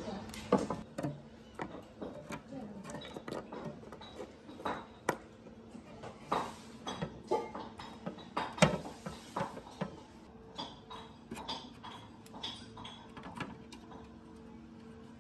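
Irregular clinks and knocks of metal parts and tools being handled during disassembly, with sharper knocks about half a second in, around five seconds in and near nine seconds in.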